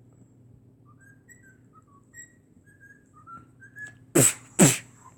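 Bird calls: a few faint short chirps, then two loud whistling calls about half a second apart, each sliding sharply down in pitch.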